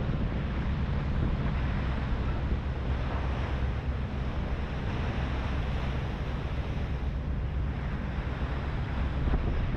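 Wind buffeting the microphone on the open deck of a HADAG harbour ferry, over the steady low drone of the ferry's engine and the wash of water along the hull.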